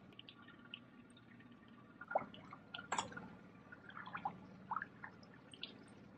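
Water dripping and plinking against a small boat's hull in short, irregular drops, over a faint low steady hum.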